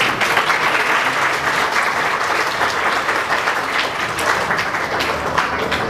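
Audience applauding, a crowd of many hands clapping that breaks out all at once and keeps up evenly.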